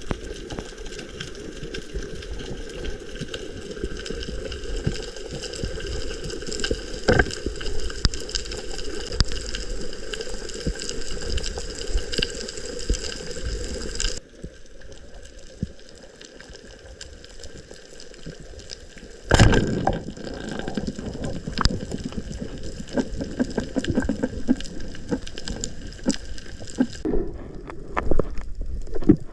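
Water sloshing and bubbling with many small clicks. The sound drops suddenly to a quieter stretch about halfway through, and a loud thump comes about two-thirds of the way through.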